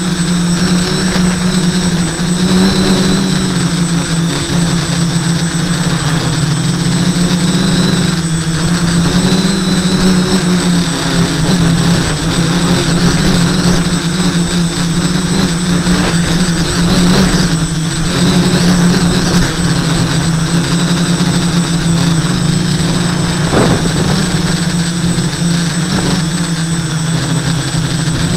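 Quadcopter's four SunnySky 980 kV brushless motors and propellers whirring steadily in flight, heard from a camera on the frame, with a steady hum that wavers slightly in pitch as the throttle changes and wind noise.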